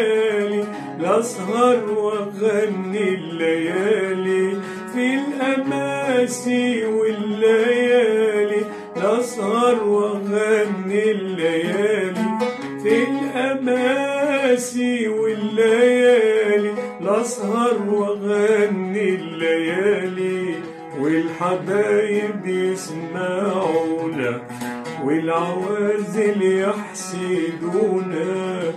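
Arabic oud plucked, accompanying a man singing with a wavering, sliding melodic line.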